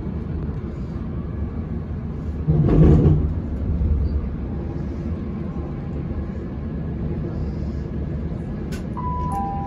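Steady running rumble of a passenger train heard from inside the carriage, swelling louder for about a second roughly two and a half seconds in. Near the end a two-note onboard passenger-information chime sounds, a higher note followed by a lower one, heralding the next-station announcement.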